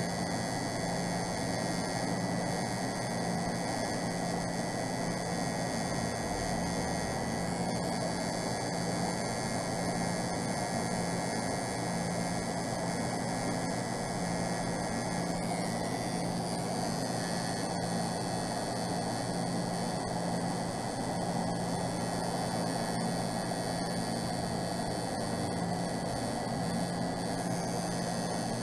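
Tattoo machine running with a steady buzz while its needle works into skin, lining a stencil.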